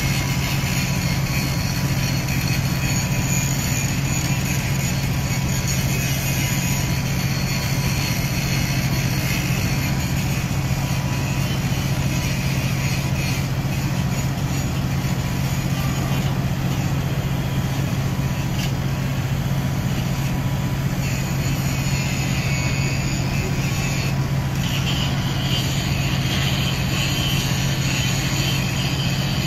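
Engines of the Grimaldi ferry Catalina running at berth: a steady low drone that never changes, from a ship whose funnel is putting out smoke while it lies alongside.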